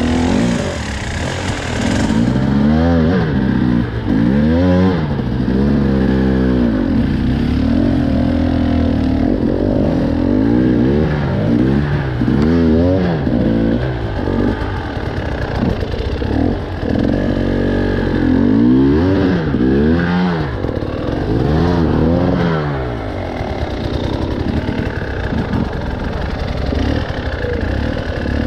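Off-road trail motorcycle engine running under load, its pitch rising and falling again and again as the throttle is opened and closed along the trail.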